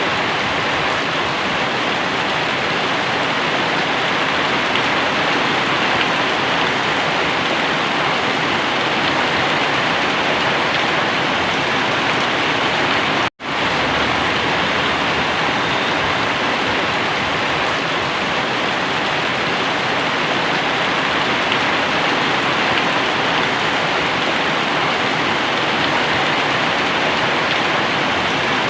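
Very heavy rain pouring down, a dense steady hiss of rain that drops out to silence for an instant about halfway through.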